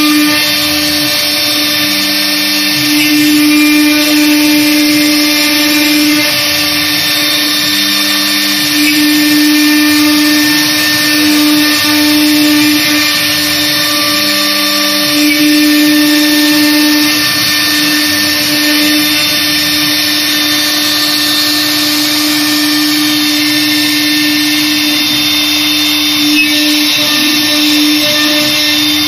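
A 1325 CNC router's spindle running at speed while its bit routes grooves into a wooden door panel. It makes a steady whine with cutting noise, swelling louder several times as the bit moves along the pattern.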